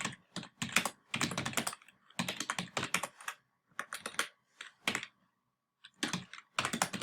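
Fast typing on a computer keyboard, keystrokes clattering in quick bursts with a brief pause about five seconds in.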